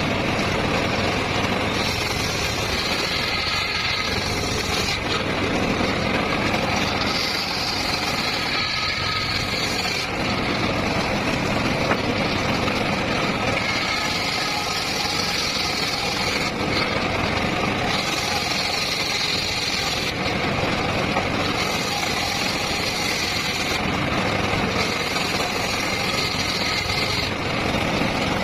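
Circular saw running at full power while cutting teak and mahogany wood. A higher-pitched cutting sound rises over the steady machine noise about five times, each lasting two to three seconds.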